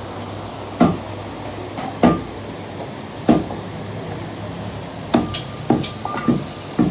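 Dull chopping knocks of a blade on a wooden butcher's block while mutton is cut, about one every second and a quarter. About five seconds in comes a quicker run of knocks mixed with sharp ringing clinks of a steel knife.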